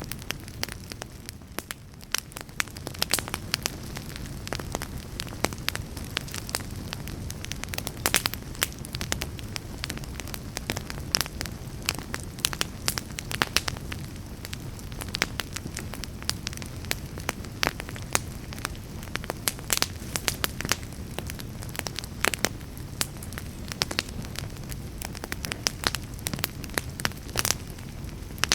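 Fire burning in a fireplace, with irregular sharp crackles and pops over a steady low rumble of the flames.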